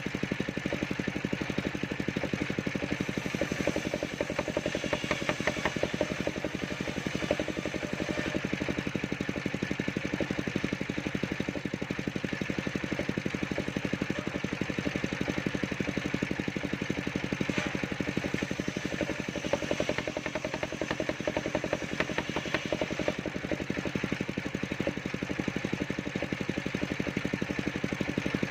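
Engine of a portable circular saw rig running steadily, with an even, rapid firing beat.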